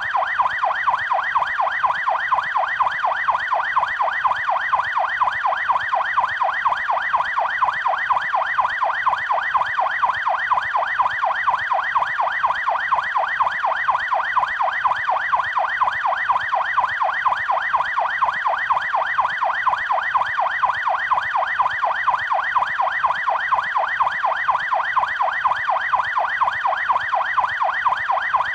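Police car siren on its fast yelp setting: an electronic tone sweeping rapidly up and down, about three or four times a second, without a break.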